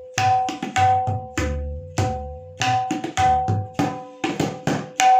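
Solo tabla playing a rela imitating a train: ringing, pitched strokes on the small treble drum mixed with deep, swelling bass strokes on the large bass drum, in an uneven rhythm of about three to four strokes a second.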